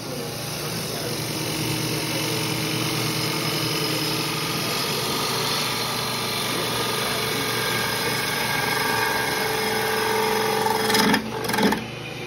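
Wood lathe running while a bowl gouge cuts the inside of a spinning wooden bowl: a steady motor hum under a continuous hissing cut. Near the end there are two short, louder scraping jolts.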